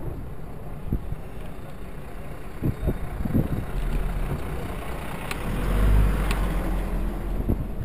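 Fire engine's engine running, a low rumble that swells as the bicycle passes close by it, with wind noise on the microphone and a couple of sharp clicks late on.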